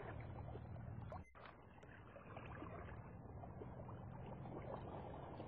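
Faint steady background hiss with a low hum, briefly dipping about a second in.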